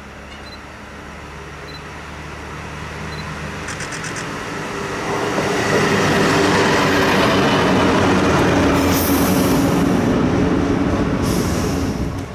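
Yellow self-propelled track maintenance machine passing close by, its diesel engine running and wheels rumbling on the rails. It grows louder as it approaches and is loudest as it goes past from about six seconds in, then cuts off suddenly near the end.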